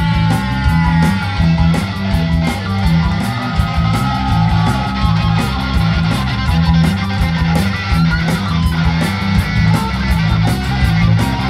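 Ska-punk band playing live: an instrumental passage with a steady drum beat and a repeating bass line under the melody.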